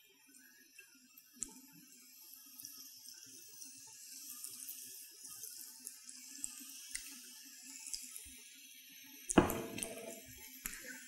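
Breaded chicken pieces frying in hot oil in a pan: a faint steady sizzle with scattered small crackles. A sudden knock, the loudest sound, comes about nine seconds in.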